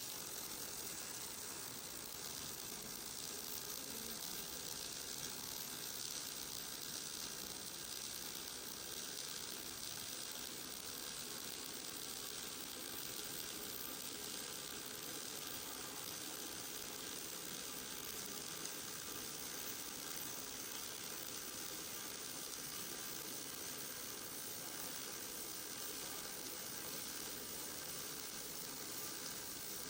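Robotic laser welder running a fillet weld: a steady, even hissing sizzle that starts just before and holds unchanged throughout.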